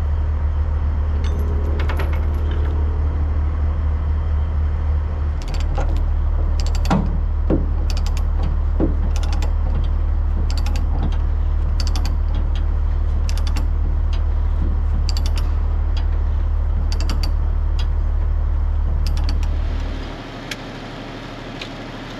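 Diesel truck engine idling with a steady low drone, with repeated light metallic clicks and clinks over it. The drone drops away about twenty seconds in.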